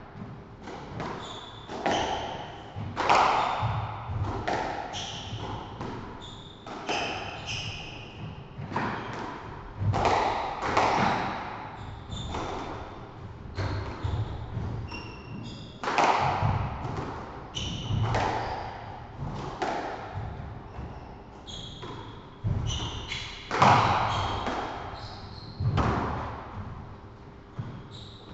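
Squash rally: the ball cracks off rackets and the walls every second or so, each hit ringing in the enclosed court, with short high squeaks of shoes on the wooden floor between the hits.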